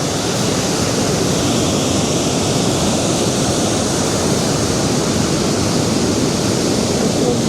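Steady, even rush of surf washing onto a sandy beach.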